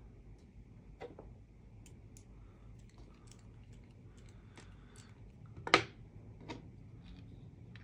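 Light clicks and ticks of a precision screwdriver working a small screw into 3D-printed plastic parts, and of the plastic pieces being handled. Just before six seconds in comes one much louder knock as the screwdriver is set down on the wooden desk, followed by a smaller click about a second later.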